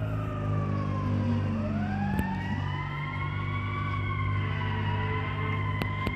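Fire engine siren wailing: its pitch falls for about the first second and a half, then climbs and holds high, over a steady low rumble.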